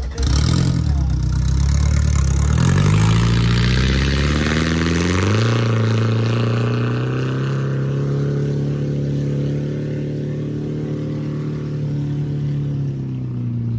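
Small boat engine revving up, its pitch rising in steps over the first five or six seconds, then running steadily at high speed as the boat gets under way.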